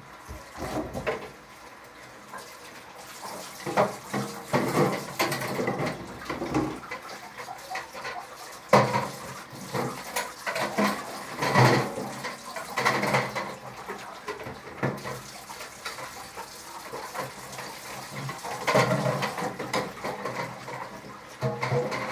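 Water running from a tap into a bucket at a sink as the bucket is rinsed out, with irregular splashing and sloshing and occasional knocks of the bucket being handled.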